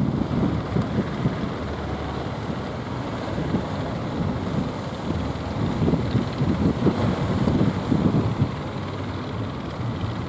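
Strong wind gusting against the microphone, buffeting in uneven bursts over a steady low rumble.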